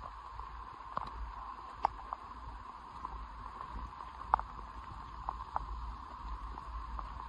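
Footsteps of a hunter walking a wet grassy forest track in light rain: a steady hiss with a low rumble underneath and scattered sharp ticks, the loudest about two and four seconds in.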